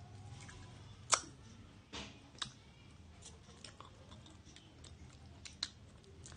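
Someone eating fried instant noodles with a metal fork: quiet chewing, with a few sharp clicks of the fork on the ceramic plate. The loudest click comes about a second in.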